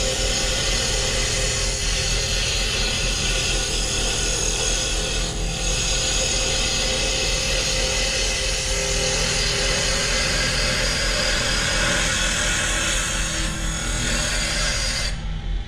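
JET mini wood lathe spinning a spindle blank at about 2,500 RPM while a hand-held turning tool takes a light finishing cut: a steady hiss of wood being shaved over the lathe motor's hum. The cutting hiss stops suddenly near the end, leaving the motor's hum.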